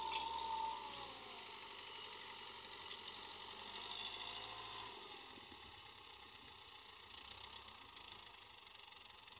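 TAFE 5900 DI tractor's diesel engine running steadily as it pulls a cultivator through the soil, growing fainter as the tractor moves away.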